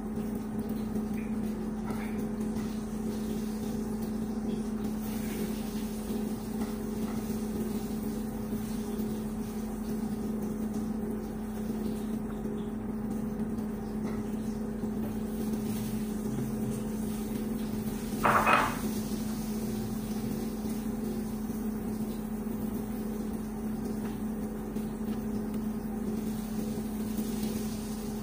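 A steady electrical hum, like a running kitchen appliance, goes on throughout. A short, louder clatter comes about two-thirds of the way in.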